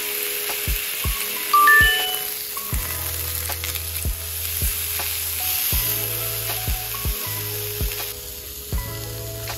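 Beef steak sizzling as it sears in a ridged grill pan, with a steady hiss, under background music with an even beat and held notes.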